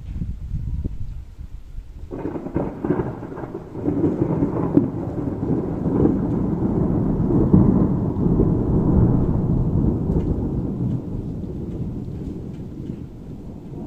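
Thunder: a sudden crack about two seconds in that rolls on as a long rumble, swelling and then fading away near the end, over steady heavy rain.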